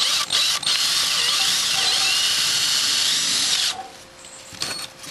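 Electric drill with a 1/4-inch bit, run at high speed, boring through thin copper sheet into a wooden backing block. It starts with a couple of quick bursts, then runs steadily for about three seconds before stopping, with one more short burst near the end.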